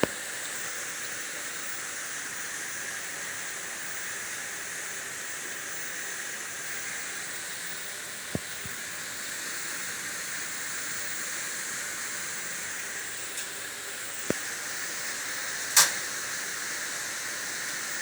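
Steady hiss with a few sharp knocks and clicks from the cruise ship's mechanical system, like something striking a pipe: single knocks about 8 and 14 seconds in, and a louder click near 16 seconds. This is the recurring click-thump-click knocking that a repair has not cured.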